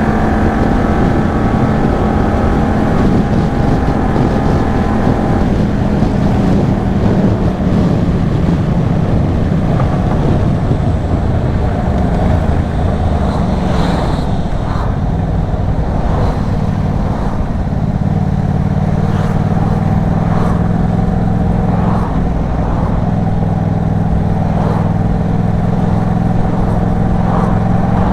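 Yamaha MT-07's parallel-twin engine running through an Arashi aftermarket exhaust while being ridden, its note shifting with the throttle: steady at first, changing about five seconds in, then settling lower and rising slightly near the end.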